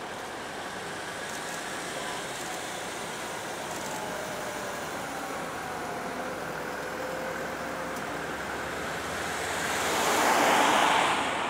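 Road traffic moving through an intersection: a steady hum of engines and tyres with faint engine tones, then a car passing close by, swelling to its loudest about ten seconds in and fading.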